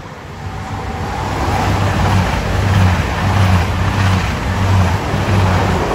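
Diesel passenger train running through the station past the platform. The rush of wheels and engines builds to a peak through the middle and fades near the end, over a low throb pulsing about twice a second.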